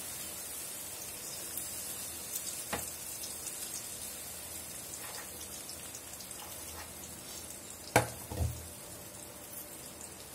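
Idli-batter bondas deep-frying in hot oil in a kadai: a steady hiss with fine crackles. A click comes near three seconds in, and a sharper knock about eight seconds in, followed by a couple of soft thumps.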